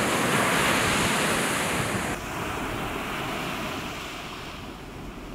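Sea waves breaking and surf washing up onto a sandy beach, a steady rush that drops to a quieter wash about two seconds in.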